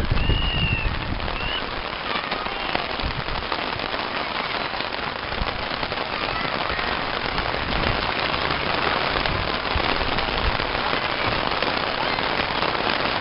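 Steady rain falling, a dense even hiss, with a brief high tone near the start.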